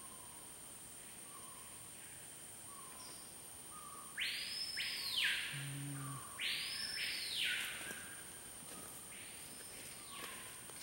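Forest ambience: a steady high-pitched whine with soft short notes repeating every second or so. From about four seconds in come three harsh hissing calls, each about a second long and rising then falling in pitch, the third one fainter.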